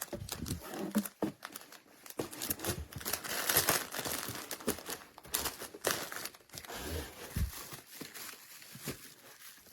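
Packaging being crinkled and handled, an irregular crackling with scattered clicks and knocks, loudest about three and a half seconds in.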